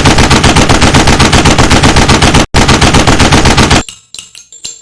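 Automatic gunfire: a long, loud run of rapid shots, a brief break about two and a half seconds in, then another run that stops just before four seconds, followed by faint scattered clinks and ringing.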